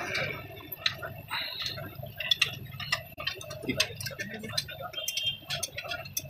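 Irregular light metallic clicks and taps of hand tools working the release-finger adjusting bolts of a tractor's dual-clutch pressure plate, several a second and thickening near the end.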